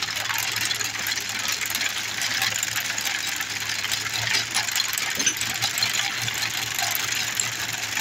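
A 1920s McCormick Deering corn binder clattering as it cuts and gathers corn stalks: a dense, steady rattle of many ticks from the knife, chains and packers, with a steady engine hum underneath.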